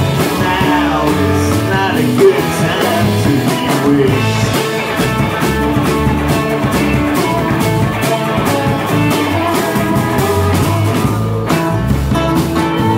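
Live band playing amplified roots-rock: acoustic and electric guitars, fiddle and a drum kit keeping a steady beat.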